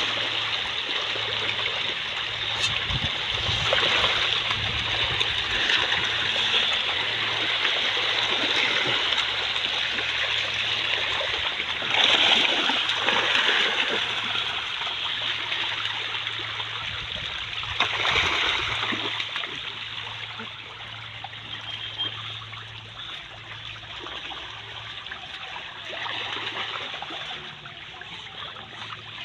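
A dense shoal of pangas catfish thrashing at a pond's surface, a continuous churning splash of water. It surges twice, then eases off and grows quieter about two-thirds of the way through as the water calms.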